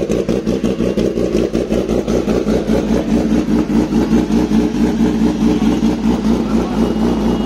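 Kawasaki Ninja ZX-10R's inline four-cylinder engine running steadily at idle just after being started, its note rising slightly in pitch in the second half.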